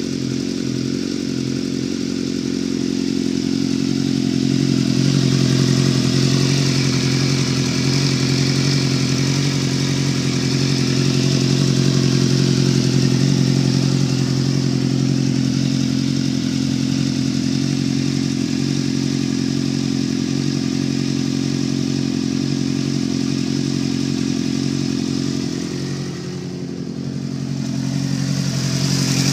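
Suzuki GSX-R motorcycle engine running steadily with a knocking sound in it, the revs swelling slightly a couple of times and dipping briefly near the end before picking up again.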